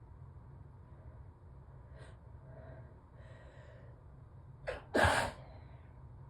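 A person's allergy sneeze: a few soft breaths, then a short sharp intake of breath about four and a half seconds in, followed at once by one loud sneeze.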